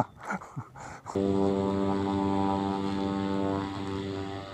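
Small propeller aircraft's engine running at a steady pitch, a level drone that starts abruptly about a second in and fades near the end.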